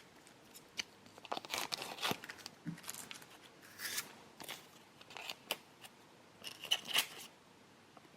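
Close-up handling of the plastic packets and tray of a DIY candy kit: irregular crinkles, snips and small clicks, in bursts over several seconds.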